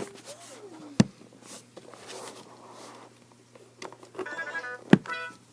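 Room tone with two sharp clicks or knocks, one about a second in and a louder one near the end. A simple, evenly stepped electronic tune starts about four seconds in.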